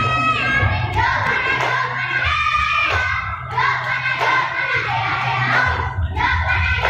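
A group of young girls singing a yel-yel chant-song together in unison.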